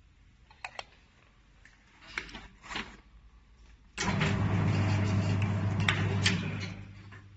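Semi-automatic can seamer: a few light clicks and knocks, then about four seconds in its motor starts suddenly and runs with a steady hum for under three seconds as it seams a lid onto an aluminium can, with two sharp clicks during the run, before winding down.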